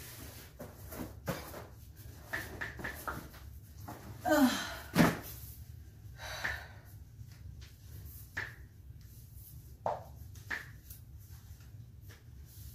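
Handling noises of a foam exercise mat being rolled up and set down: scattered rustles and knocks, the loudest a sharp knock about five seconds in, over a steady low hum.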